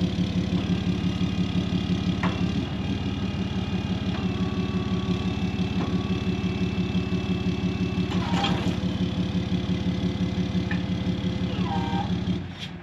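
Truck engine idling steadily, with a couple of light clicks, then switched off shortly before the end.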